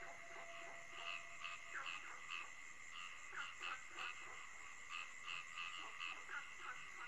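Night-time ambience: frogs calling in short, repeated croaks, several a second, over a steady high insect drone. Faint.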